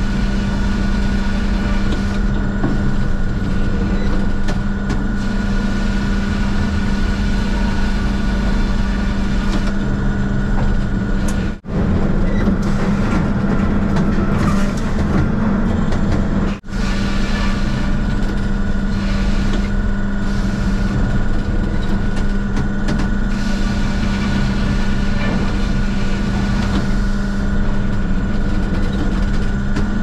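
Sawmill headrig machinery running: a band saw and a Cleerman log carriage, a loud steady industrial drone with a constant hum. The sound cuts out for an instant twice, around the middle.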